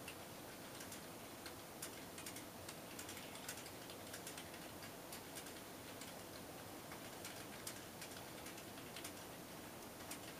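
Faint steady hiss with light, irregularly spaced clicks throughout.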